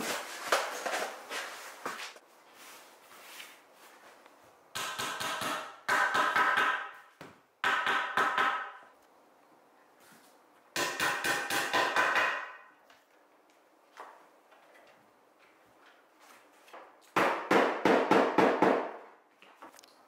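Hand hammer rapidly tapping on walnut workpieces, in five quick runs of one to two seconds each with pauses between.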